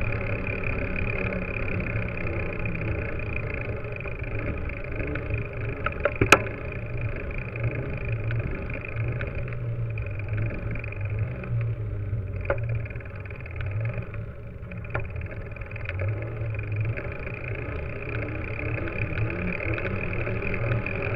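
Mountain bike riding over paving, heard through a camera mounted on the bike: a steady rumble of the knobby tyre and rattle of the bike, with a sharp knock about six seconds in and a couple of lighter ones later.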